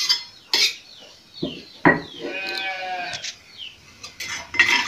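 A metal spoon clinks and scrapes sharply against a wok several times. About two seconds in, an animal bleats once in a wavering call that lasts just over a second.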